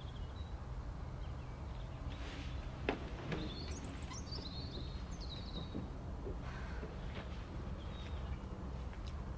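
Quiet room ambience with a steady low hum and faint bird chirps, a few sliding calls clearest in the middle. A single light knock about three seconds in.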